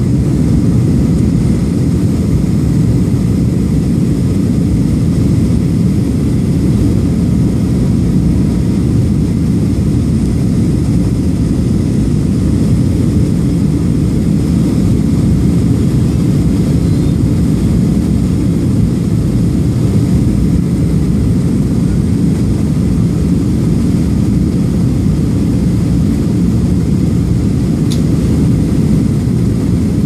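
Steady cabin noise of a Southwest Airlines Boeing 737 descending: jet engines and rushing airflow heard inside the cabin as a loud, even low rumble with faint high tones above it. A small click near the end.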